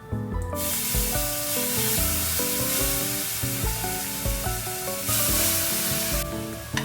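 Food sizzling in a hot pan, a steady hiss that starts about half a second in and stops shortly before the end, over light background music.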